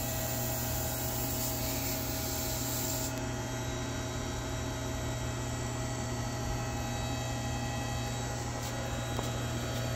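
Steady mains hum with an even hiss from the open electrical control cabinet of a powered-up Haas VF0 vertical machining center.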